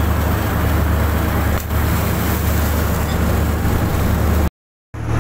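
Fishing boat's engine running steadily with the rush of churning water alongside the hull. The sound cuts out completely for about half a second near the end, then resumes.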